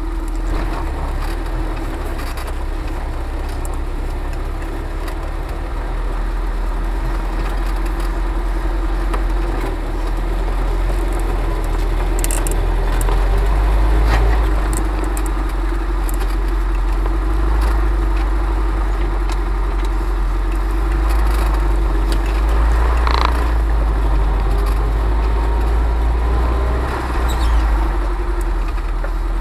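UAZ 4x4 engine running as the vehicle crawls along a rough forest track, with a deep low rumble and a steady drone. A few short clicks and scrapes of branches against the body stand out now and then.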